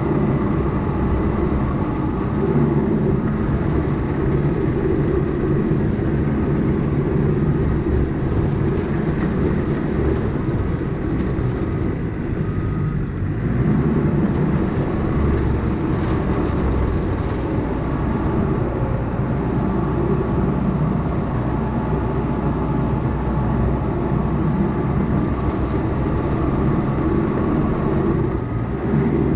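Heavy earthmoving machine's diesel engine running steadily at work, loud, easing briefly about halfway through and again near the end.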